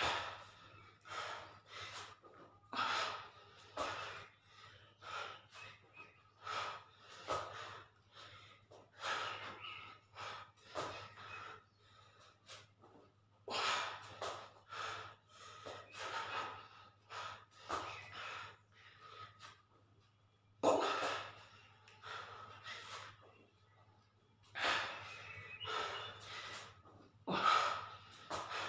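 A man breathing hard through a set of push-ups: short, forceful exhales and gasps at about one a second, some louder than others, over a faint steady hum.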